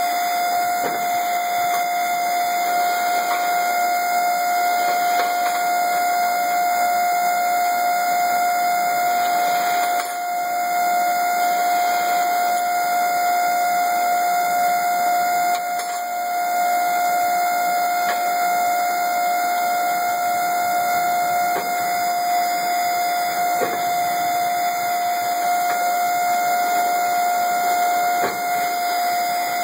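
Bending machine giving off one continuous, unchanging high tone, like a buzzer, that the owner finds unbearably annoying.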